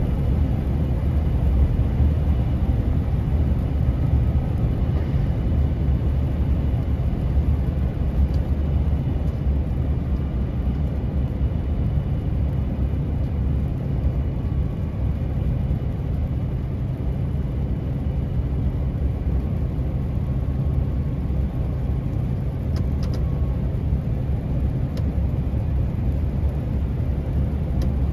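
Heavily loaded truck heard from inside the cab, its engine and tyres giving a steady low drone as it runs down a long grade. A few faint clicks sound now and then.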